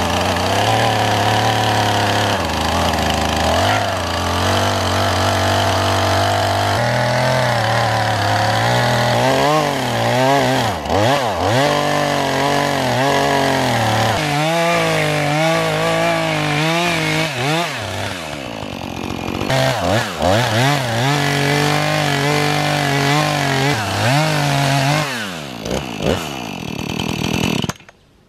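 Gasoline chainsaw ripping lengthwise along a log to mill it into beams, freehand. The engine runs steady at high revs at first. From about a third of the way in, its revs repeatedly drop and climb again, and it cuts off suddenly near the end.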